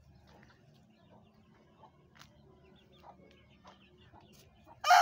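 Mostly quiet poultry yard with faint scattered chirps and clucks from chickens. Near the end a rooster starts crowing loudly.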